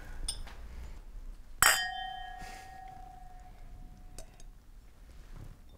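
Wine glasses clinked together in a toast: one sharp clink about a second and a half in, then a clear ringing tone that fades away over about three seconds.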